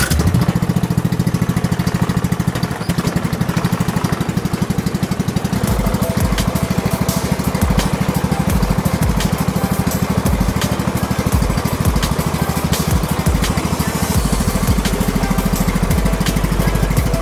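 Briggs & Stratton engine of a McCulloch M125-97 ride-on lawn tractor running steadily, with a fast, even beat of firing strokes, after its first start following four months of standing.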